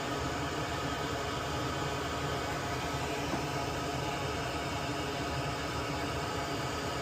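Steady whooshing hiss of a small fan or blower running, unchanging throughout, with a faint hum in it.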